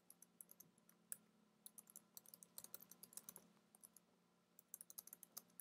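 Faint typing on a computer keyboard: runs of light key clicks, with a brief pause a little past the middle, over a faint steady hum.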